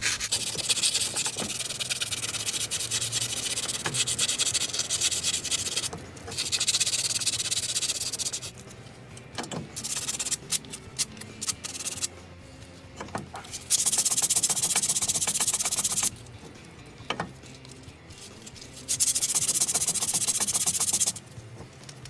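Rust being scrubbed off the hub bore of a Vauxhall Astra H front steering knuckle. Four stretches of harsh rubbing, each lasting two to six seconds, with light scraping and clicks between them.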